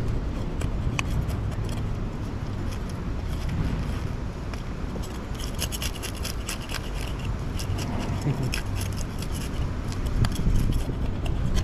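A knife scraping scales off a fish, a rapid run of small raspy ticks that thickens from about halfway through. Under it, a steady low rumble.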